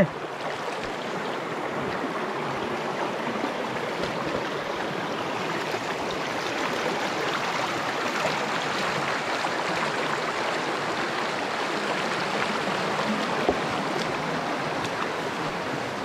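Steady rush of flowing water, a continuous even hiss with no pauses.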